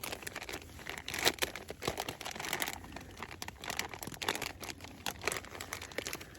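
Irregular crinkling and rustling of nylon or plastic gear being handled, with scattered sharper crackles, as when packing up inside a small tent.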